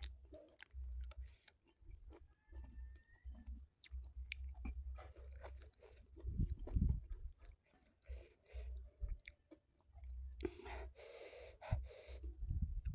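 Close-miked chewing and mouth sounds of someone eating nasi tiwul (cassava rice) with vegetables and sambal by hand, with small clicks and some crunching. A short rush of breathy noise comes about ten seconds in.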